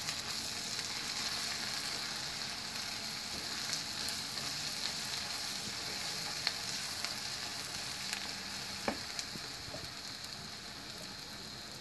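Sliced onions sizzling in hot oil in a frying pan while being stirred with a silicone spatula: a steady hiss with a few faint clicks, easing slightly near the end.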